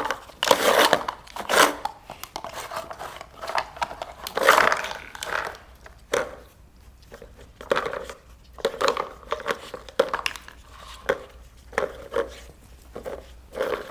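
A dog rummaging at a food game, with irregular bursts of crinkling and tearing as it digs out the treats. The loudest bursts come near the start and again about four and a half seconds in.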